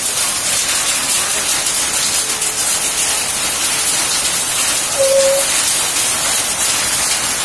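Heavy rain mixed with hail falling steadily, a dense even hiss. A short pitched call breaks in about five seconds in.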